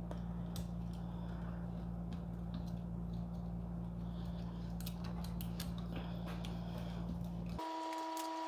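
Faint clicks and taps of small printer parts and cables being handled, over a steady low hum. Near the end the hum drops out and a steady higher tone with overtones sounds for about two seconds.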